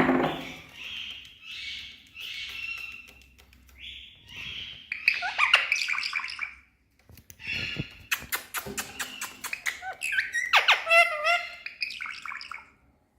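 Indian ringneck parakeet chirping and squawking in a string of short calls, some gliding in pitch, with a quick run of sharp clicks about two-thirds of the way through.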